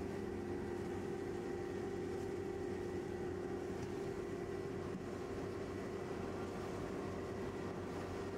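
Somero S-22EZ laser screed running as its screed head works wet concrete: a steady machine drone with a constant hum.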